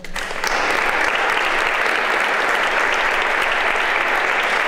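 Audience applauding, a crowd of hands clapping that breaks out suddenly and holds steady.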